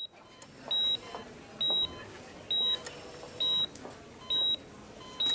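Patient heart monitor beeping: a short, high-pitched beep repeating evenly about once every 0.9 seconds. This is the steady pulse of a regular heartbeat, about 65 beats a minute.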